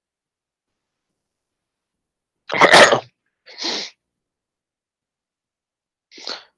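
A person sneezes once, loudly, about two and a half seconds in, followed a second later by a quieter breathy sound and, near the end, a faint short one.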